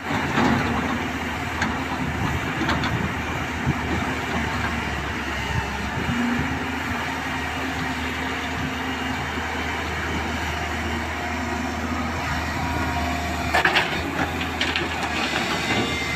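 Excavator's diesel engine running steadily with a constant low hum, with a few sharp metallic knocks a little before the end.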